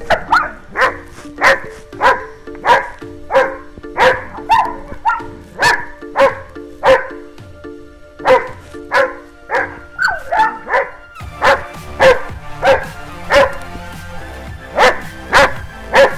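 A large dog barking over and over, about one and a half barks a second with a couple of short pauses, over background music.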